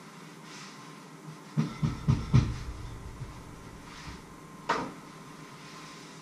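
Dull knocks against a wooden kitchen counter: a quick run of four or five about a second and a half in, then a single sharper knock some three seconds later, over a faint steady hum.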